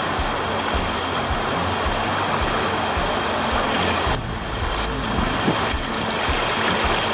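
Rushing river water from fast-running rapids, a steady loud wash, with low rumbling on the microphone.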